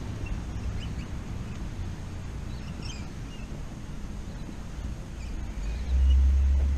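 Wind buffeting the microphone during a bike ride, a low rumble that swells louder about six seconds in, with a few faint bird chirps.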